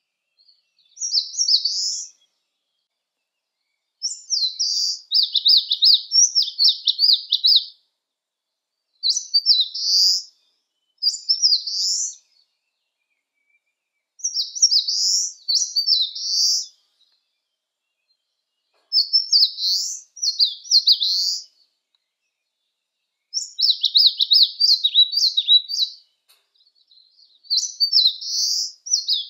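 Eastern crowned warbler singing: high-pitched song phrases, each one to three seconds long, repeated about eight times with short pauses between.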